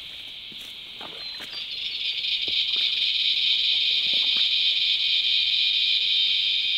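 Cicada chorus: a loud, steady high-pitched drone that is softer at first and swells up about two seconds in. Faint rustles and snaps of someone moving through undergrowth sit underneath.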